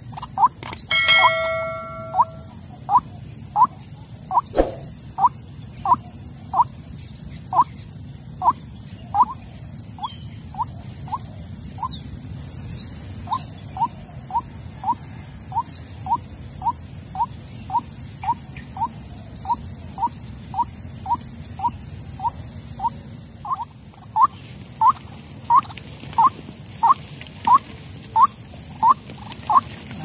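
White-breasted waterhen calling: a long run of short, rising notes, about two a second, with a short break midway and louder notes toward the end. A steady high whine runs underneath.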